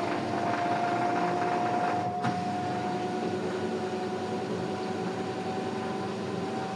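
LG automatic washing machine on its spin cycle: the drum motor runs with a steady whine over a constant hum.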